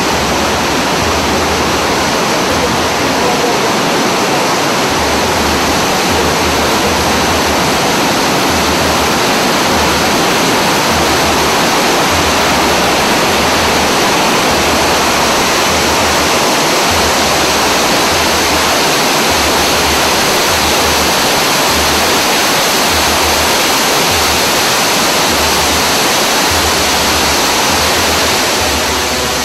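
Fast mountain stream rushing and splashing white over rocks and down a waterfall: a loud, steady rush of water, with a low rumble underneath that comes and goes.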